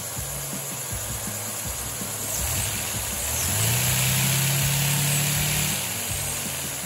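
Micro inline-four Lego vacuum engine with 2x2 pistons and a cross-plane crank running, its plastic pistons and valves making a fast, steady clatter of clicks. About three and a half seconds in, a low hum rises in pitch and grows louder with a brighter hiss, then drops back near six seconds.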